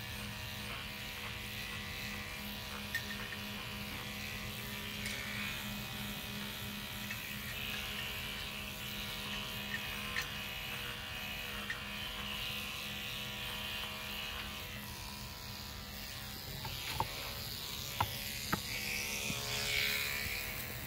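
Electric livestock clippers fitted with a #5 blade, running with a steady buzz as they shear a goat's flank and belly hair against the grain. A few sharp clicks come in the last few seconds.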